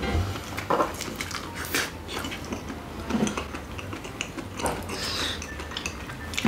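Close-miked eating sounds of two people chewing and biting into spicy bibim noodles and dumplings, with scattered short clicks of chopsticks and spoons against the bowls.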